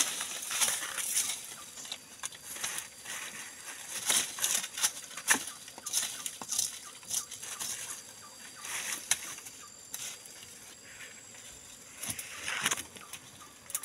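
A bundle of leafy branches swished and brushed about, giving irregular rustling swishes that thin out in the middle and pick up again twice near the end. A steady faint high-pitched tone runs underneath.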